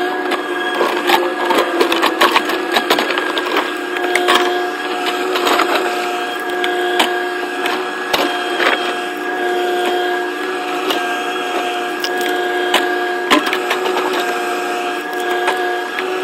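Excavator running with a steady, high hydraulic whine while its bucket scrapes and crunches through dirt, with many sharp clicks and knocks.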